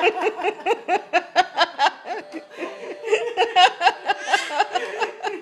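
A person laughing continuously, a quick string of short pitched bursts at about four or five a second.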